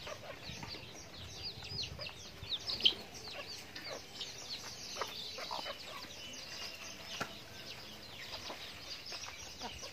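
Backyard chickens feeding at a trough, with clucking and a dense run of short, high, falling chirps, and a few sharp taps of beaks on the trough.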